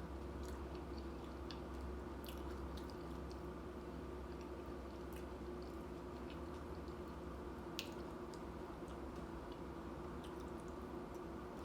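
Close-miked chewing of a mouthful of nachos, with scattered small mouth clicks over a steady low hum; one sharper click about eight seconds in.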